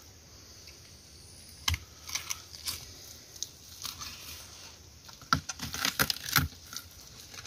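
Knife cutting and prying out a carp's gills on a wooden board: scattered short clicks and crunches, coming thicker after about five seconds in.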